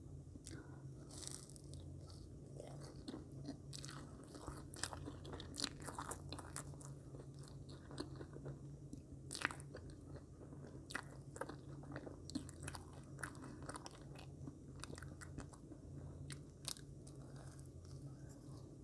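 Close-up mouth sounds of a person chewing and biting soft marshmallows coated in chocolate sauce: many irregular sharp clicks and smacks. A steady low hum runs underneath.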